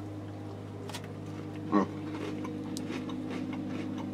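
Steady low electrical hum made of several fixed tones, with faint handling of a foil sachet of condensed milk, a small click about a second in, and a brief murmur of voice a little under two seconds in.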